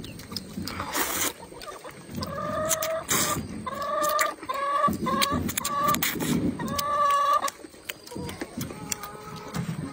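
A chicken calling nearby in a series of short clucks, bunched in quick runs for several seconds. Two short hissy bursts of noodles being slurped come through, one just before the clucking starts.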